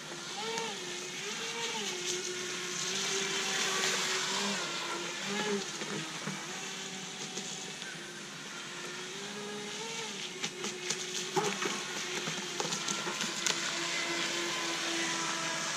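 Radio-controlled jet boat running laps on the water: its motor and jet pump whine, the pitch rising and falling as the throttle changes, over a hiss of water spray.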